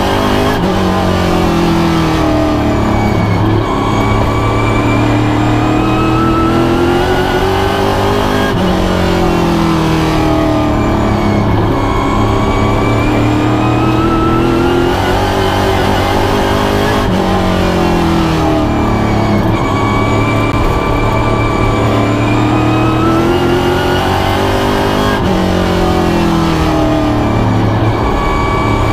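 Pro stock race car's V8 engine at racing speed, heard from inside the cockpit, with no words over it. Its pitch climbs, then drops off as the throttle is lifted, over and over in a steady lap rhythm: a big drop about every eight seconds and a smaller lift midway between.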